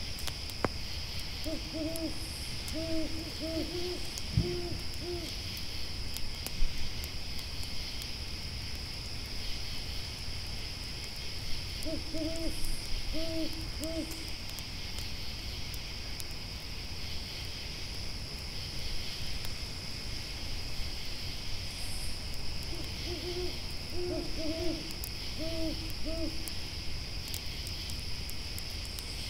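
Owl hooting in three bouts of several short hoots each, roughly ten seconds apart, over a steady high chirring of grasshoppers. Occasional small crackles from a campfire.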